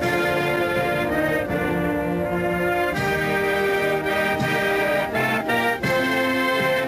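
Military brass band playing a national anthem: full held chords of trumpets, horns and tubas, moving from chord to chord at a slow, even pace.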